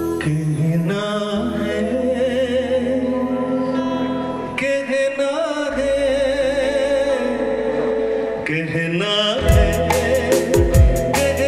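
A male singer performing a Hindi film song live through a microphone, singing long, wavering held notes over sustained keyboard chords. Near the end, percussion comes in with a beat.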